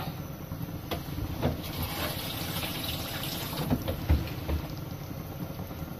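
Pot of meat stock heating on a gas burner: a steady low rumble with liquid sounds, and a few faint knocks.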